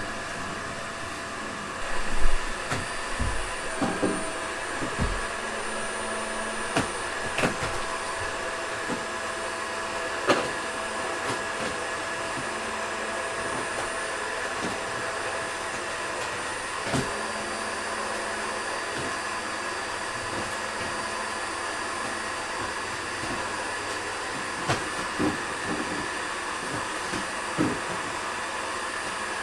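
Toshiba VC-BK750X vacuum cleaner running steadily while cleaning, a constant airy noise with a faint high whine. Short knocks and clicks come through now and then, the loudest a couple of low thumps about two seconds in.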